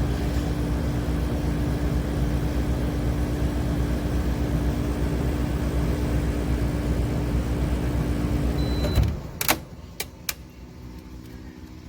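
Portable air conditioner running with a steady hum and blowing noise, which stops suddenly about nine seconds in. A few sharp clicks follow.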